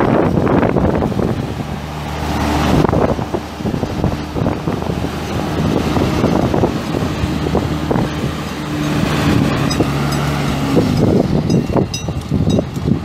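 Cummins ISB 5.9-litre inline-six turbo diesel in a Ford F800 truck, running at a steady speed. Wind is buffeting the microphone.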